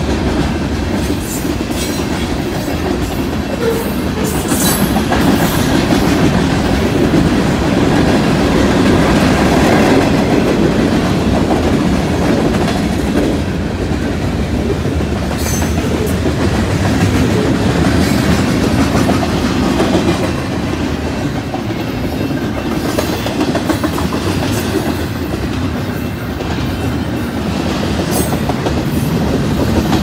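Freight train cars rolling past at close range: a steady, loud rumble of steel wheels on rail, with scattered sharp clicks as the wheels cross the rail joints.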